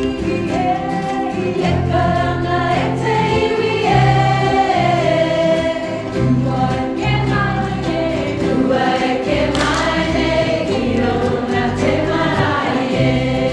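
Music with a group of voices singing over an instrumental backing and a bass line of held notes.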